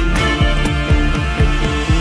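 Background music with a steady beat and repeated falling bass notes.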